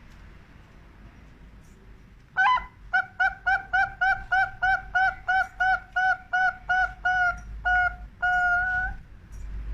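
Zebra dove (perkutut) singing: about two seconds in, a rapid run of short, clipped cooing notes at an even pitch, roughly three to four a second, ends in one longer drawn-out note.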